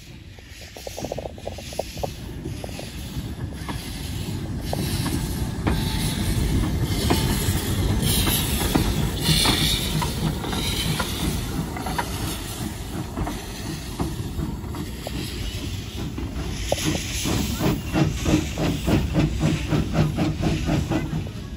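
GWR No. 1340 Trojan, a 0-4-0 saddle-tank steam locomotive, working wagons up a steep gradient. It grows louder as it approaches, with loud steam hissing as it passes, then sharp rhythmic exhaust beats as it climbs away in the last few seconds.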